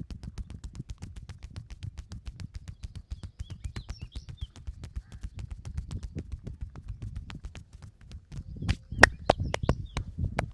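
Rapid, even percussive massage: hands striking a client's body over and over, several muffled slaps a second. Near the end come a few louder, sharper slaps.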